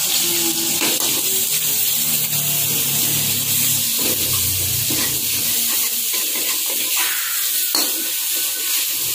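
Ground spice paste with galangal, ginger and kaffir lime leaves sizzling steadily in hot oil in a wok, while a metal spatula stirs it, scraping and tapping against the pan every second or so.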